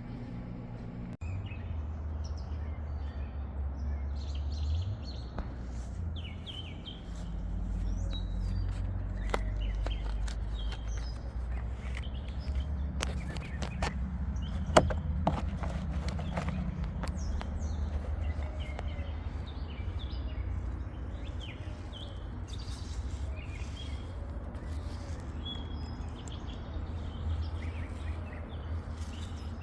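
Birds chirping over a steady low rumble, with scattered sharp clicks, the loudest about halfway through.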